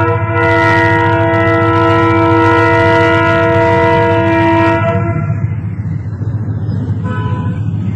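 Locomotive horn blowing one long, steady multi-tone blast that cuts off about five seconds in, over a low engine rumble. After the horn stops, the rumble of nearby motorcycle and rickshaw engines carries on.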